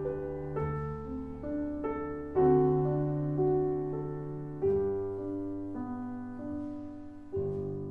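Solo piano playing a slow, gentle passage in sustained chords, each struck and left to fade; a last chord near the end rings on and dies away.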